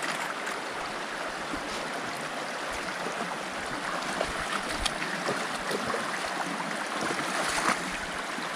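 A clear mountain creek rushing steadily over rocks and small waterfalls, with a few faint clicks scattered through it.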